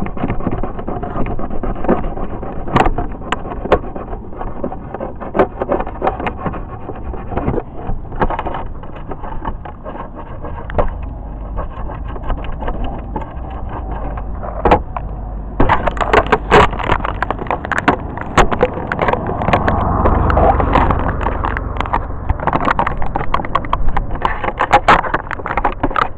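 Small RC car rolling over rough concrete, picked up by a camera mounted on the car: a continuous rattling rumble with frequent sharp clicks and knocks, busier and louder from about halfway through.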